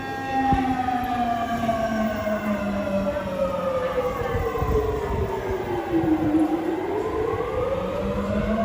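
Civil-defence warning siren wailing: a high tone that slowly sinks in pitch for about six seconds, then rises back to its top pitch near the end.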